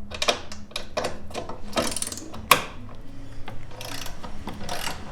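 Hand socket ratchet clicking in quick, uneven strokes as it loosens a 10 mm nut, with one sharper click about two and a half seconds in.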